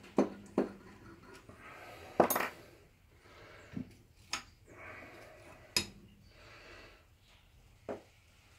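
Metal tools clinking and knocking against a Holden M20 four-speed gearbox case during a strip-down: about seven separate sharp clanks and taps, the loudest about two seconds in.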